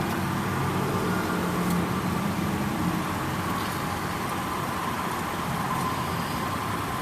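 Steady hum of a motor vehicle at a constant level, with a few faint clicks.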